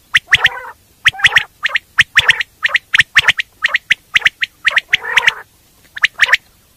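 Coturnix quail calling: short, sharp notes in quick groups of two or three, repeated over and over, with a few lower, raspy, gurgling notes in between.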